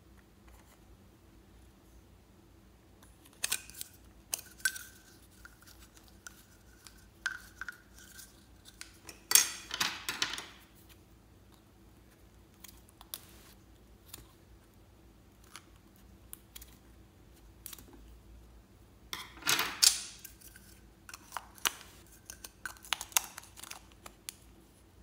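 Small scissors snipping at plastic lip-balm tubes, among scattered clicks and taps of plastic being handled. The loudest are two noisy bursts about a second long, roughly 9 and 19 seconds in.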